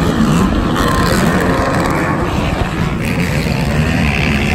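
Racing ATV (quad) engine running hard, its revs swinging up and down under throttle.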